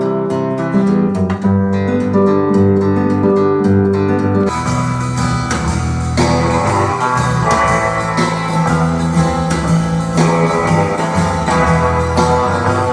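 Guitar music played through homemade acoustic-suspension speakers with 15-inch woofers: a plucked guitar line alone at first, then about four and a half seconds in a fuller band sound comes in and carries on.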